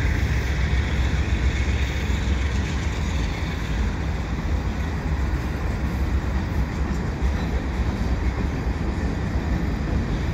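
Freight cars of a Canadian Pacific mixed freight train, covered hoppers and boxcars, rolling past: a steady rumble of steel wheels on the rails with a hiss on top.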